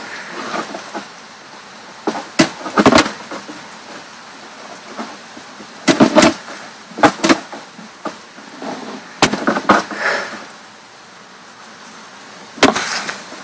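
Sharp knocks and clacks at irregular intervals, several in quick pairs, over a steady hiss.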